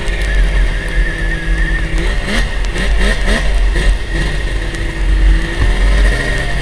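Yamaha Viper snowmobile's two-stroke engine running, revved up and down several times in quick succession between about two and three and a half seconds in, then settling. Heavy wind rumble on the helmet-mounted microphone underlies it.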